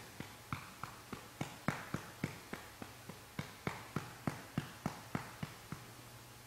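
A hand patting a baby's back to bring up a burp: light, even pats, about three to four a second, that stop near the end.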